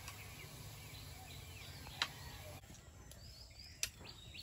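Faint birdsong, short chirps sliding in pitch, over a low steady background. Two sharp clicks of a metal utensil against the plate, about two seconds in and near the end, the second the louder.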